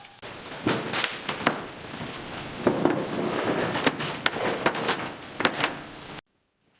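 Irregular knocks, taps and clatter of building work over a steady noisy hiss, cutting off suddenly near the end.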